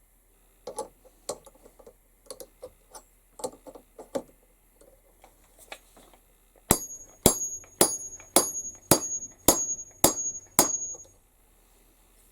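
Hammer peening over a rivet on metal. Several light, uneven taps come first, then about halfway through eight hard, evenly spaced blows, roughly two a second, each with a bright metallic ring.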